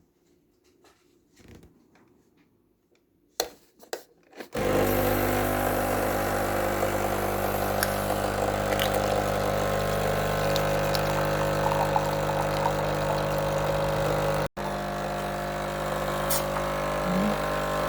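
Nescafé Dolce Gusto Infinissima capsule coffee machine brewing: after a few soft clicks, its electric pump starts abruptly about four and a half seconds in and runs with a steady, loud hum, pumping water through the capsule. The hum breaks off for a split second once, about three-quarters of the way in.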